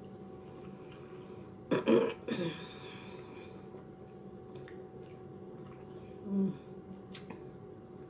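A person burps loudly about two seconds in, a double belch, then makes a short low throaty sound a few seconds later. Faint clicks of eating come in between.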